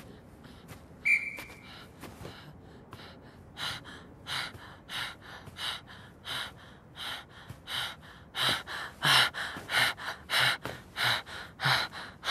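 A boy panting hard, with rapid, even, rasping breaths that grow louder about halfway through: the breathing of someone exhausted from running sprint after sprint. A single sharp click sounds about a second in.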